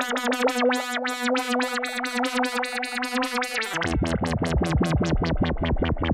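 Moog Voyager XL analog synthesizer playing a fast, evenly repeating sequence of short pitched notes. About four seconds in, the pattern shifts down into a lower register and a bass line comes in.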